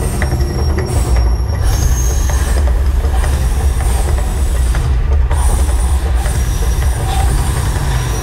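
The Mirage volcano show erupting: a loud, steady, deep rumble with a noisy roar over it as gas-fired flame jets burst from the artificial volcano.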